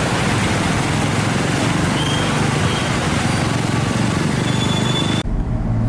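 Steady wash of outdoor noise under a low engine hum, cutting off suddenly near the end.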